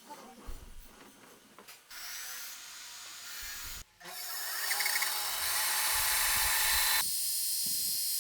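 A few light knocks, then a power tool cutting into wood with a steady rushing noise from about two seconds in. It stops briefly about halfway and comes back louder, then cuts off abruptly near the end.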